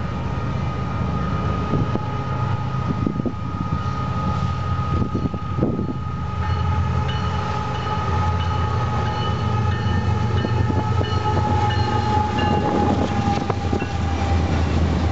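Air horn of an approaching Union Pacific diesel freight train, sounding a chord of steady held tones that drops slightly in pitch as the lead locomotive comes alongside near the end. Under it, the low rumble of the locomotives' diesel engines grows louder as they draw close.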